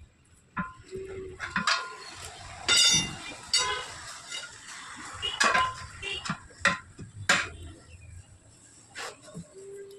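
Metal tools clinking and knocking against a wheel rim during tyre removal: a string of irregular sharp strikes, each with a short metallic ring.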